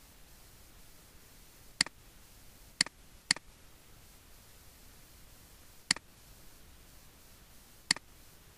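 Computer mouse clicking: five single sharp clicks at irregular intervals, two of them close together about three seconds in, over a faint steady hiss.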